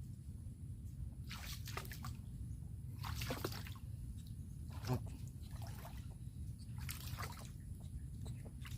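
Water splashing and sloshing in short irregular bursts at the water's edge, a sharper splash near the middle, over a steady low rumble.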